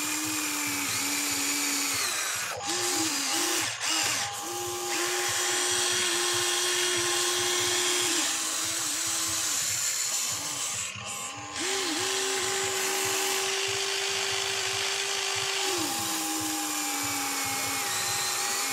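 Huina 1594 RC excavator's electric gear motors whining as the boom, arm and bucket dig, the pitch stepping up and down and sliding as motions start, stop and change load, with a few short breaks.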